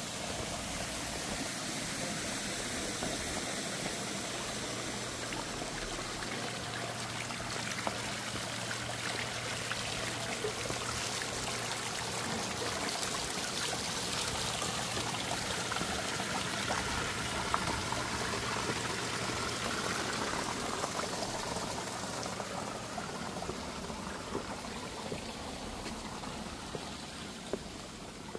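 Small stone fountain spout pouring steadily into a basin, a continuous trickling and splashing of water that grows fainter near the end.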